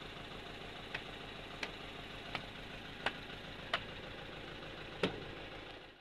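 Tractor engine driving a sawmill, running steadily at idle, with a sharp tick recurring about every 0.7 seconds. The sound fades out near the end.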